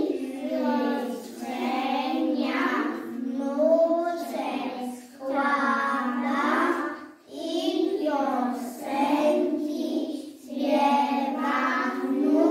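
A group of young children singing a song together in unison, in phrases broken by short pauses for breath.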